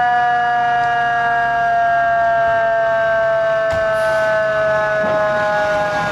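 Fire truck's mechanical siren winding down, a single loud wail sliding slowly and smoothly lower in pitch.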